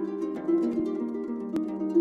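Concert harp played solo: a repeating figure of plucked notes in the middle-low register with other notes plucked above it, two lines at once, with one sharp, bright pluck about a second and a half in.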